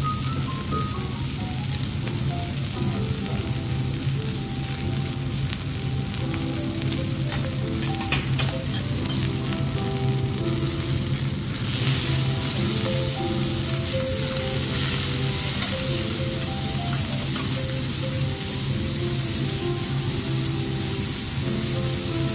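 Amadai fillets and scallops sizzling on a hot steel teppanyaki griddle, with a few spatula clicks; the sizzle jumps louder about halfway through as the chef turns the fish with two steel spatulas. Quiet background music plays throughout.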